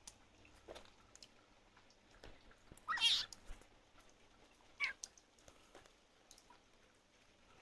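A frog giving high, squeaking distress calls: one loud squeal about three seconds in, a shorter one near five seconds and a faint one before them.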